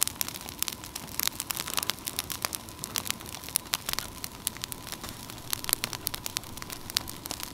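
Wood campfire crackling, with sharp pops coming irregularly, several a second.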